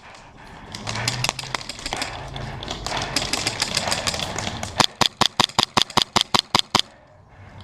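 Airsoft gun firing: scattered single shots over a rushing noise, then a rapid string of sharp snaps at about seven a second for some two seconds near the end.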